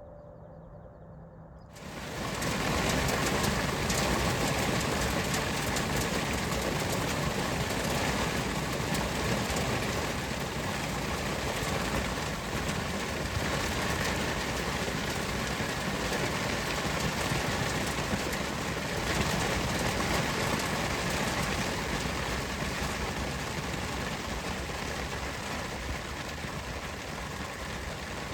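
Steady heavy rain, a dense even hiss that comes in suddenly about two seconds in.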